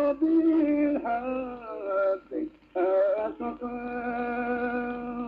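A solo voice singing an ornamented melodic line with wavering turns between notes, then holding one long steady note from about three and a half seconds in.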